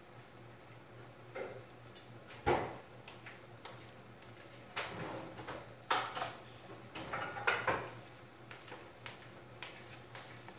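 Scattered knocks and clatter of dishes and utensils being handled, the loudest about two and a half seconds in, over a faint steady low hum.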